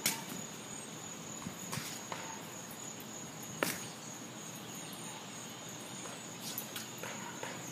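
Foam pool noodles striking each other a few times, short sharp knocks spread out about two seconds apart, over a steady high insect trill.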